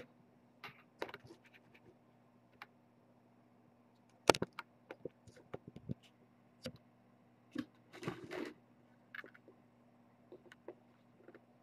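Scattered small clicks and soft knocks, the sharpest about four seconds in and a short cluster about eight seconds in, over a steady low hum.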